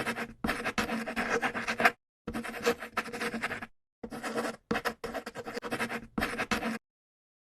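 Scratching and rubbing noise in several stretches that cut in and out abruptly, stopping about seven seconds in.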